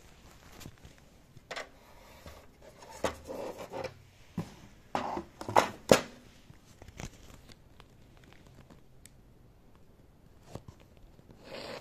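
Handling noise from the satellite receiver and its packaging being moved about: a run of scrapes, rustles and sharp taps, loudest about six seconds in, then a short rustle near the end.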